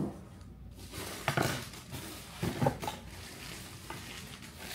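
Packaging being handled as a monitor is opened up and lifted out of its box: rustling and scraping of the foam and box, with a few short knocks and scrapes about a second and a half in and again about two and a half seconds in.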